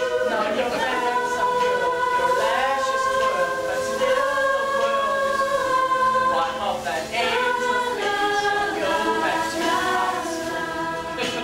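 A stage chorus of voices singing in harmony, holding long notes in several parts that shift pitch together now and then.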